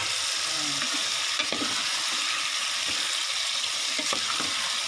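Chili sauce sizzling steadily in a pot as half-fried chicken pieces are stirred through it with a wooden spatula, with a few light knocks of the spatula.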